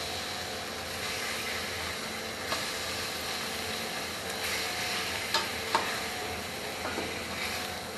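Chicken pieces sizzling steadily in hot fat in a frying pan as they are sealed golden brown on both sides. A few sharp clicks cut through the hiss, the loudest about two-thirds of the way in.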